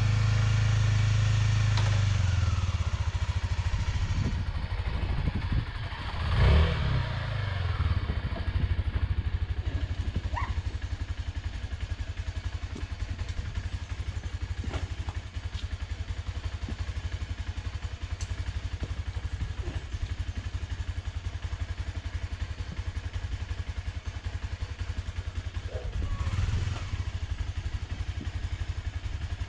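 Honda Dominator's single-cylinder motorcycle engine running: revs fall back to an even idling beat about two seconds in, with a short rev about six seconds in and another near the end, as the bike is worked up a step.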